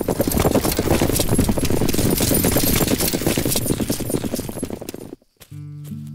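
Several horses galloping together: a dense, loud rush of hoofbeats that cuts off suddenly about five seconds in. Music with held notes starts just after.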